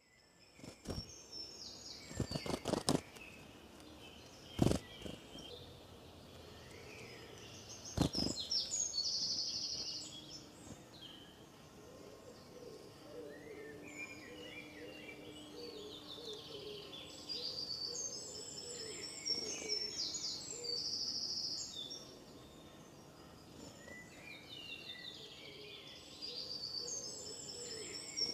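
Songbirds chirping, with quick trills and rapidly repeated high notes. A few sharp clicks stand out in the first eight seconds, a cluster of them about two to three seconds in.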